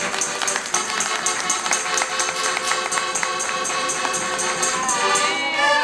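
Live folk music from a small troupe: an accordion playing with a tambourine jingling on a quick, steady beat. Near the end a voice comes in over it.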